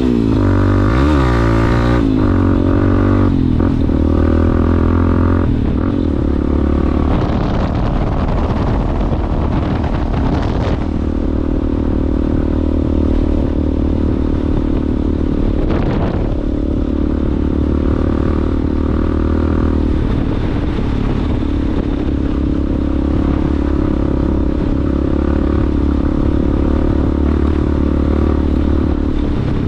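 Yamaha Ténéré motorcycle engine through a Coyote aftermarket exhaust, revving up and down for the first few seconds, then running at a fairly steady pace while riding off-road, with a couple of brief knocks.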